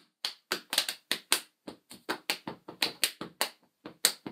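Hands tapping out a quick, uneven rhythm of sharp taps, about three to four a second.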